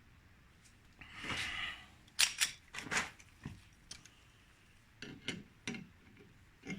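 Hand tools and metal parts handled at a workbench: a short rustle about a second in, then a scatter of sharp clicks and taps.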